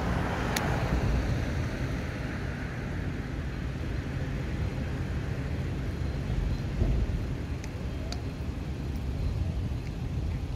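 Steady low outdoor rumble of traffic or machinery noise, with a few faint sharp clicks: one about half a second in and two close together near the eight-second mark.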